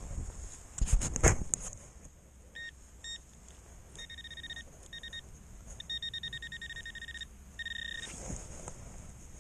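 A handheld metal-detecting pinpointer probe beeping as it is worked in a freshly dug hole. It gives short single beeps, then longer runs of fast pulsing beeps that signal metal close by. A few loud knocks from digging the ground come about a second in.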